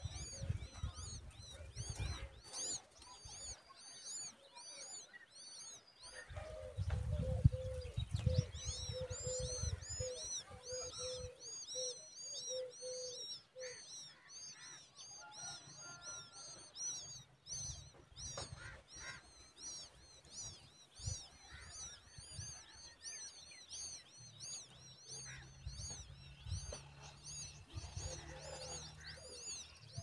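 Babbler nestlings begging at the nest: high, thin chirps repeated several times a second. A lower pulsing note runs for several seconds in the middle. Low rumbles come near the start and again around seven to nine seconds in.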